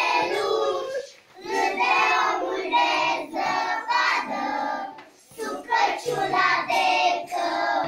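A group of young children singing a song together, their sung phrases broken by two short breaths, about a second and five seconds in.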